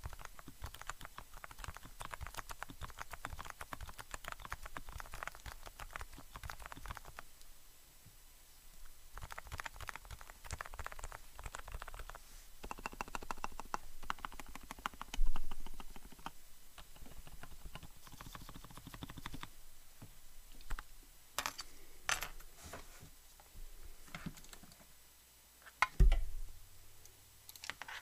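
Typing on a prototype Topre-switch keyboard fitted with a slider on the space bar and number three silencing rings on the other keys. It starts with fast, even keystrokes, then comes in bursts with short pauses, and ends with sparse single key presses and a few louder strikes.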